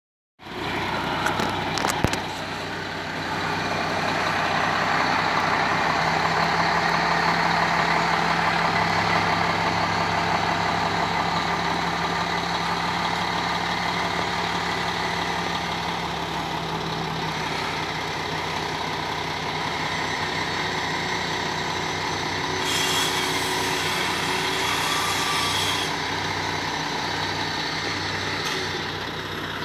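Boom crane truck's engine running steadily as it hoists a roof section. A couple of knocks come near the start, and a hiss joins in for about three seconds near the end.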